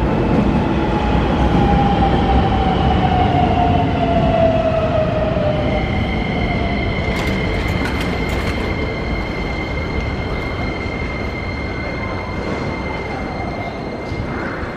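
Electric train running through the station: a loud rumble with a motor whine that falls in pitch over the first several seconds, then a steady high-pitched squeal from about six seconds in until near the end.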